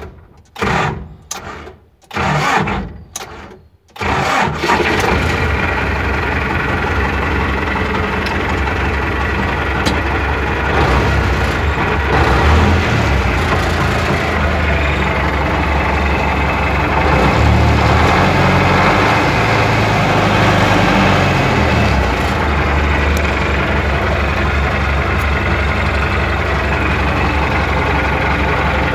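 MTZ-80 tractor's four-cylinder D-240 diesel being started: the starter turns it over in several short, separate bursts, then about four seconds in the engine catches and keeps running steadily, rising a little in the middle. The broken cranking fits the hard-starting starter problem the owner is chasing.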